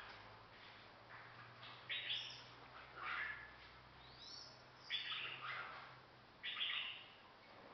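A caged songbird singing short, bright phrases about once every second or so, several of them with quick rising swoops. A faint low hum sits underneath until about six seconds in.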